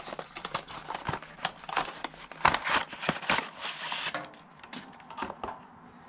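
Packaging being opened by hand: plastic crinkling and rustling with many small clicks and taps, busiest around the middle.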